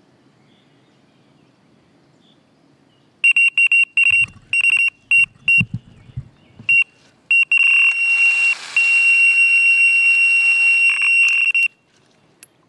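Electronic carp bite alarm sounding one high tone, first as a string of quick irregular bleeps, then held as a near-continuous tone for about four seconds: line being pulled through the alarm as a carp takes the bait. A few dull knocks come during the bleeps.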